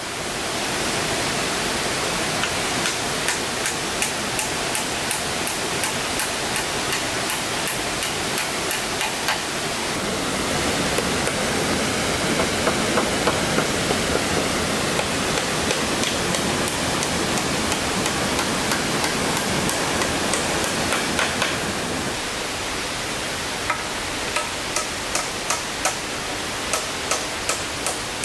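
Steady rushing noise, with two stretches of sharp regular knocks at about two to three a second: one a few seconds in and one near the end.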